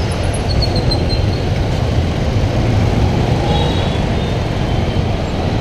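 Motorcycle traffic in a dense city street: a steady low rumble of the rider's Bajaj Pulsar 200NS single-cylinder engine mixed with the many motorcycles and cars crowding around it.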